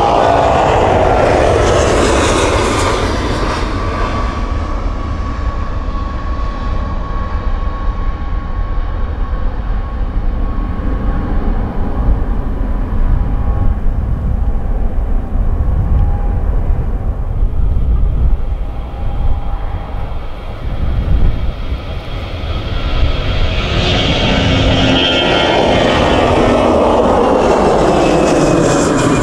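Jet airliners taking off. First an Airbus A330's engines at take-off thrust as it lifts off and climbs away, loud at first with a whine falling in pitch, then fading to a steady rumble. About 23 seconds in, a second jet, an Airbus A320, swells up loud on its take-off climb, its whine also falling in pitch as it passes.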